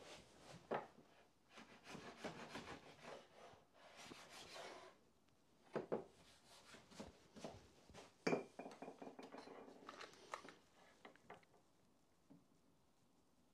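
Faint handling sounds of wood and tools on a workbench: a few seconds of rubbing and scraping, two sharper knocks about six and eight seconds in, then light clicking and rustling.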